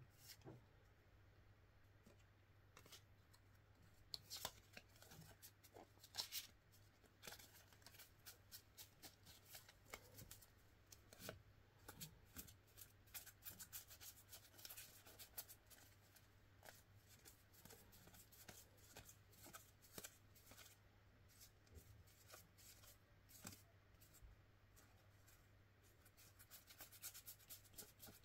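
Faint, quick clicks and rustles of UNO playing cards and their packaging being handled. The clicks are sparse at first, come thick and fast through the middle, thin out, then pick up again near the end.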